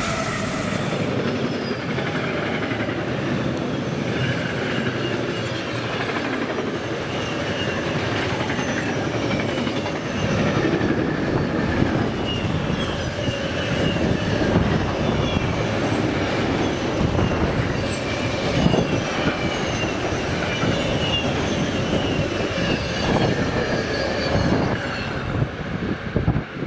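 Freight train rolling past close by: a Siemens Vectron electric locomotive going by at the start, then a long string of double-deck autorack wagons. A steady rumble of steel wheels on rail, with short high squeals from the wheels now and then.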